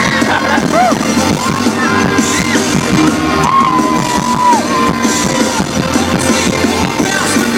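Live concert sound heard from within the crowd: the band's music playing loud, with the audience whooping and shouting over it.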